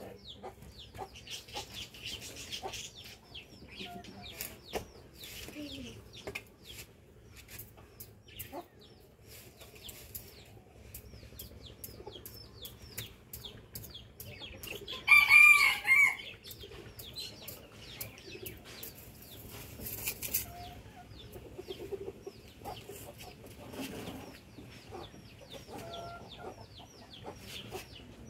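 Chickens clucking and calling, with many short high calls throughout. About halfway through, one loud rooster crow lasts about a second.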